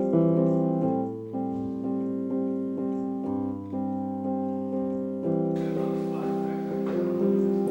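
Background music: a piano playing slow, sustained chords that change every second or so.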